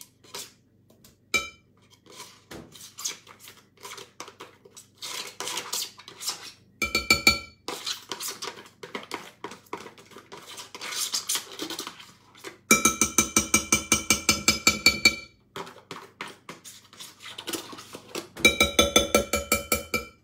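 Electric hand blender run in three short bursts in a glass bowl of berries and butter chunks, with a fast rattle over a steady motor whine; the longest burst lasts a couple of seconds, midway. Between the bursts, a foil butter wrapper crinkles and small clicks sound.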